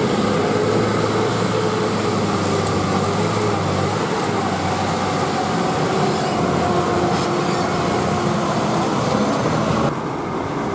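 Diesel engine of a heavily loaded Tata multi-axle lorry running steadily as it crawls through deep mud, with a low hum under dense mechanical noise. The sound changes abruptly and drops a little near the end.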